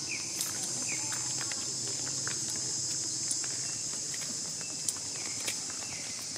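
Steady high-pitched insect chorus, with a few short chirps and scattered light clicks.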